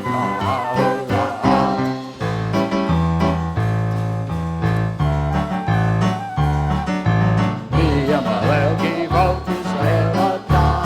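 Worship music: voices singing over a band with a moving bass line.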